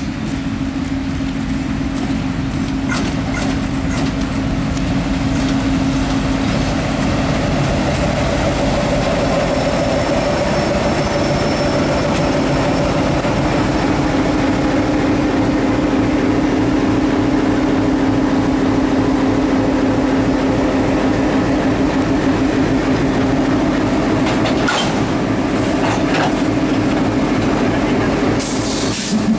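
Diesel-electric locomotive engine droning steadily as the locomotive moves slowly along the track, growing louder as it comes close. Several sharp metallic clanks near the end as it closes up against the coaches to couple.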